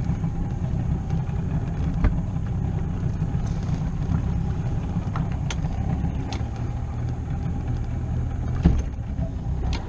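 Boat's outboard motor running steadily at low speed while the hull moves through the water, a constant low rumble. A sharp knock about two seconds in and a louder thump near the end.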